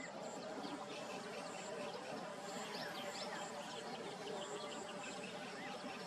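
Outdoor ambience of several small birds chirping and twittering, with short high-pitched notes repeating irregularly over a steady hiss.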